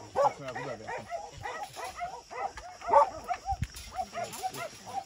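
Dogs barking, short pitched calls coming several times a second and overlapping one another.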